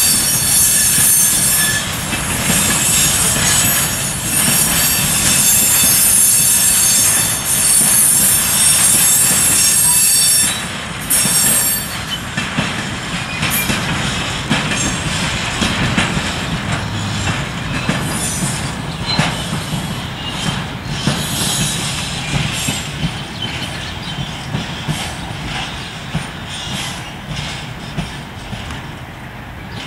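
Freight train of car-transporter wagons rolling past, wheels squealing with high steady tones for the first ten seconds or so. Then the squeal stops and the wheels click over rail joints, fading as the train moves away.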